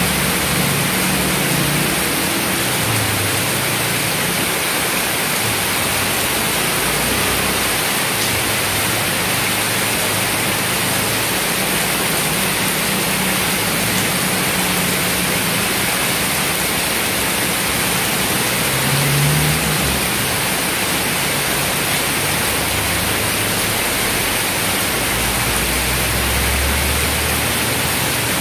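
Heavy rain pouring steadily. Passing vehicles on the wet road add a low engine hum now and then, most clearly about two-thirds of the way through and again near the end.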